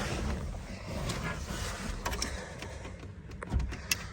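Handling noises from hands working on parts of a car's steering column: faint scraping and rattling, with a couple of sharp clicks near the end.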